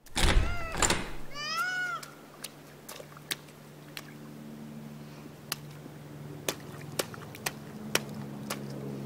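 A toddler's boots splashing and squelching in a shallow muddy puddle: a sharp smack every half second to a second as he stomps. A short high squeal from the child about a second and a half in, and a steady low hum underneath.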